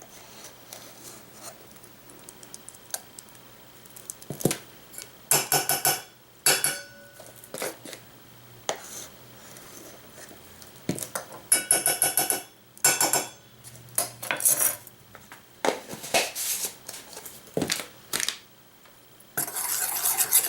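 A metal spoon clinking and scraping against a bowl and measuring spoon in short bursts as cornstarch is spooned into batter. Near the end, steady stirring in the bowl begins.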